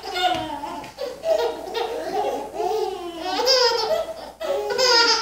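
Babies laughing in hearty runs of belly laughs, breaking off briefly about a second in and again about four seconds in.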